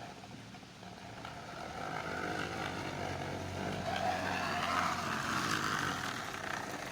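Plastic bottle wedged against a bicycle's turning wheel, giving a buzzing, motorbike-like rattle as the bike rides; it grows louder and then fades as the bike passes. The result is not that convincing as a motorbike sound.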